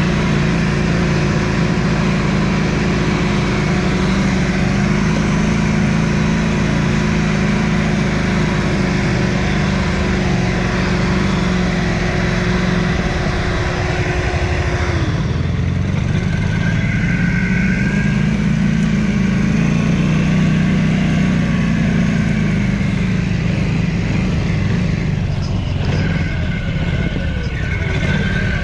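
Quad (ATV) engine running steadily while riding off-road. Its pitch drops about halfway through as it slows, then picks up again.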